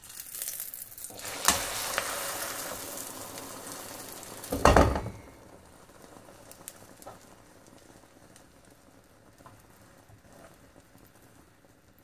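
Egg omelette being flipped with a metal spatula in a pan of hot oil: a sharp clack about a second and a half in, then loud sizzling that slowly fades. A short knock comes a little before the middle, and the frying settles into a quieter steady sizzle.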